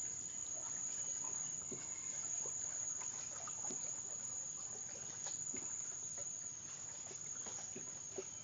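Insects in the waterside vegetation buzzing with a steady, high-pitched drone, with faint scattered ticks underneath.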